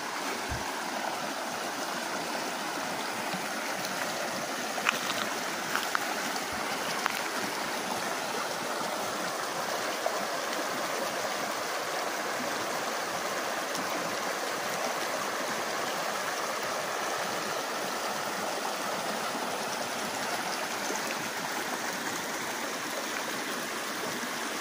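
A shallow creek flowing over rocks and gravel: a steady, even sound of running water.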